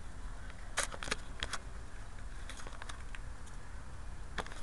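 Several sharp clicks and light clinks at irregular intervals: a cluster about a second in, a few more around two and a half seconds, and one near the end, over a steady low hum.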